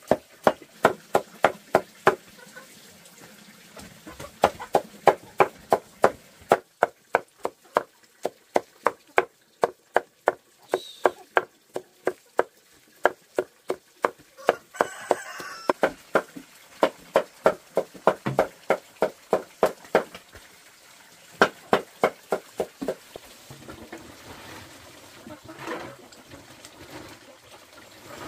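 Machete chopping a banana stalk on a wooden board, quick even chops about three to four a second, in runs with short pauses. The chopping stops a few seconds before the end.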